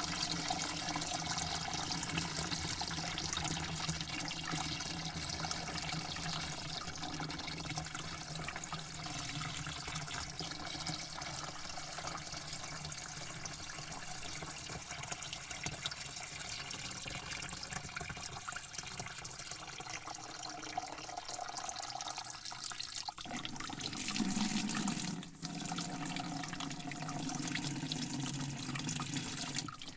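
Water running and splashing in a steady continuous flow, with a brief change and dip a little past three-quarters of the way through.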